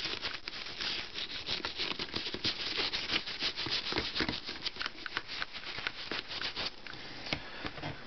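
Toothbrush scrubbing a toy nightlight with soapy water: quick, scratchy back-and-forth brushing strokes that thin out near the end.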